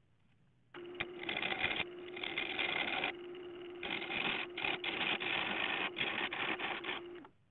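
Wood lathe running with a steady hum while a gouge cuts a spinning dead-ash bowl blank, giving a rough scraping hiss that rises and drops as the tool bites and eases off. It starts abruptly about a second in and stops just before the end.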